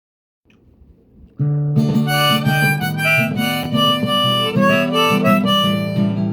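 Instrumental song intro that starts about a second and a half in: a bright melody line over low held chords.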